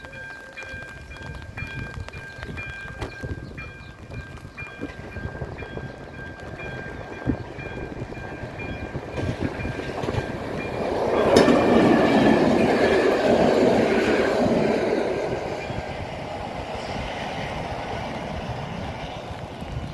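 Electronic warning bell of an AŽD 71 level crossing ringing with a steady, repeating electronic tone. About ten seconds in, a train passes over the crossing; it is loudest for a few seconds and then fades, and the bell stops a few seconds later.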